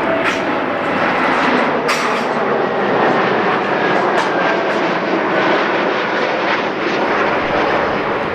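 Engines of an airliner or military transport flying past, loud and steady, with a faint whine slowly falling in pitch.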